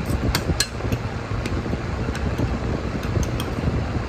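Spoon and fork clinking and scraping against a plate, several short sharp clicks, a few in quick succession in the first second, over a steady low background hum.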